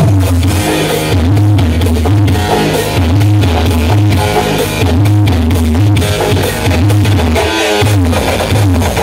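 Loud music with drums and guitar blasting from a large 'sound horeg' carnival sound system (Protons Audio), its deep bass notes pulsing about every second and a half.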